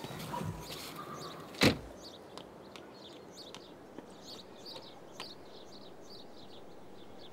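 A car door shut with one loud thud about a second and a half in, after softer sounds of someone climbing out. Small birds chirp repeatedly after it.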